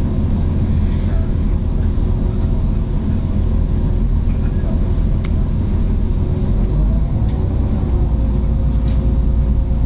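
Inside a DB Class 612 diesel multiple unit running at speed: steady low rumble of the diesel engines and wheels on the track, with a faint steady whine. A single sharp click about five seconds in.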